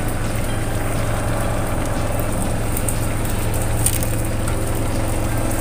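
Fish curry simmering in a steel wok on the stove: steady bubbling with faint scattered pops over a constant low hum.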